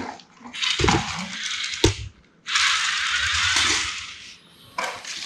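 Plastic toy vehicle wheels rolling on a hard floor with a whirring, ratcheting rattle, in two stretches with a sharp click between them.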